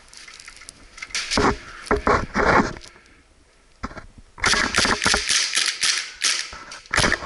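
Airsoft guns firing: a few separate shots about a second in, then a quick run of sharp shots from about halfway through.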